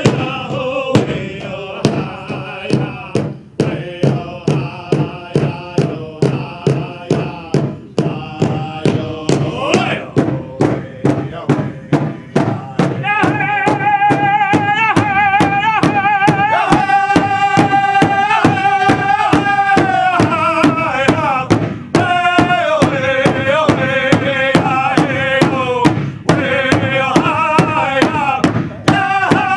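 Powwow drum group: male voices singing a high-pitched chant over a large drum struck in a steady beat, about two strokes a second, with long held notes in the middle.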